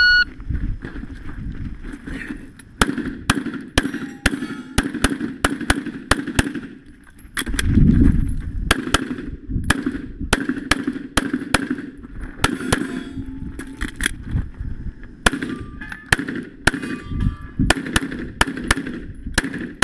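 A shot-timer start beep, then a long string of pistol shots, fired mostly in quick pairs with short pauses between groups, as a shooter runs a USPSA stage.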